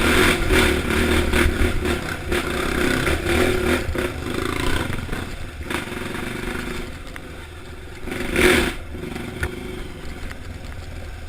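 Honda CRF dirt bike engine running under way, with clattering and scraping knocks, loud at first and dropping lower after about six seconds; a short loud burst comes about eight and a half seconds in.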